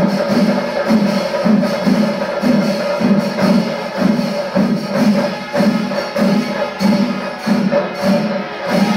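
Kerala chenda melam ensemble, chenda drums with ilathalam hand cymbals, playing the kalasam, the climactic closing passage of the melam. A steady, driving beat of about two strong strokes a second under a constant cymbal clash.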